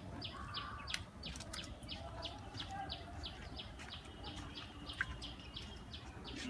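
A small bird chirping over and over in an even rhythm, about three short high chirps a second, over a faint low background rumble.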